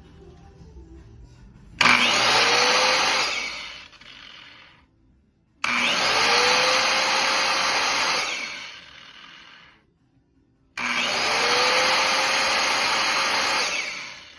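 Makita 5240L 125 mm circular saw's electric motor switched on three times, each time spinning up with a rising whine, running for a couple of seconds and then coasting down as it is released.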